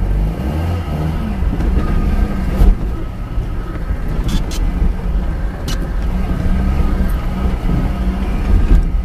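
Fiat Panda 4x4 engine running as the car crawls along a rough dirt track, heard from inside the cabin, its revs rising and falling. A few sharp knocks from the car jolting over bumps.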